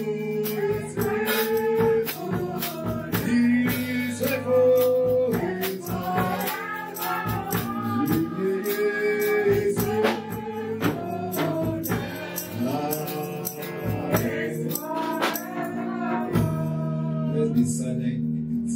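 A man singing a slow gospel worship song into a microphone, his voice gliding and holding long notes, with a tambourine shaking a steady beat and sustained low notes underneath.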